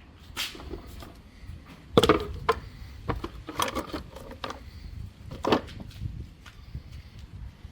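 A series of sharp clanks and knocks of tools and parts being handled during engine-removal work, the loudest about two seconds in.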